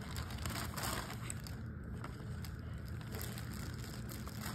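Packaging being handled as things are taken out of a box: scattered rustles and light clicks, densest about a second in, over a steady low hum.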